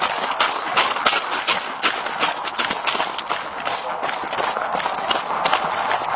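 Running footsteps across grass picked up by a police body-worn camera, about two to three footfalls a second, with the camera and gear jostling on each stride over a steady hiss.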